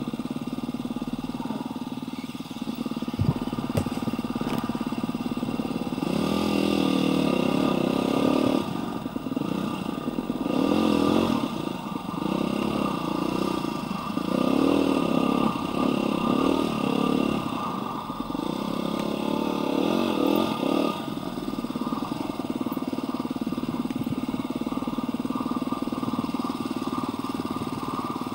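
Husqvarna dirt bike engine running under the rider, the throttle opening and closing again and again so the engine note rises and falls, loudest through the middle stretch and steadier toward the end. A couple of sharp knocks come about three seconds in.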